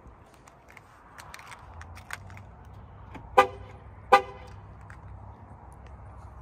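Two short horn chirps from a Chevrolet Silverado pickup, about three-quarters of a second apart.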